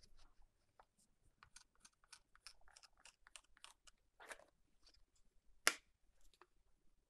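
Soft, scattered clicks and taps of oak boards being handled and fitted together on a plywood bench top, with one sharp, louder knock about two-thirds of the way through.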